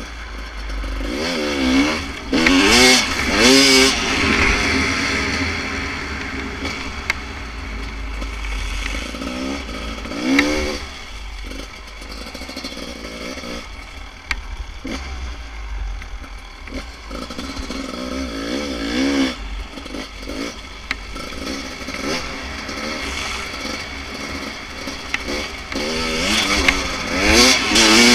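Beta RR 300 single-cylinder two-stroke enduro bike with a full FMF exhaust, ridden on snow. The engine revs up in sharp throttle bursts and drops back between them: around two to four seconds in, again around ten and nineteen seconds, and a longer run near the end. Wind rumbles on the microphone underneath.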